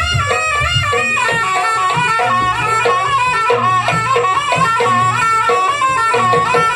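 Jaranan music played live: a nasal reed melody with ornamented, wavering pitch over drums and a steady low droning tone.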